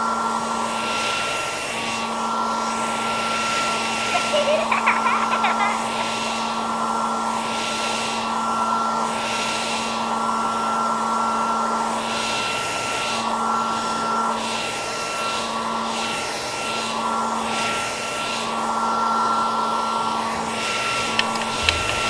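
A small electric motor running steadily with a rushing of air, a constant hum under a hiss that swells and fades about once a second. It stops right at the end.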